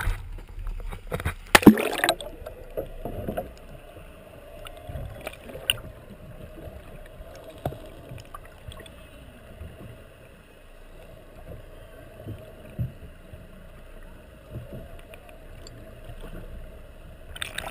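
Muffled underwater sea noise picked up by a camera held just below the surface beside a boat: a splash and sloshing as the camera goes under about two seconds in, then a steady low rush of water with a few faint knocks.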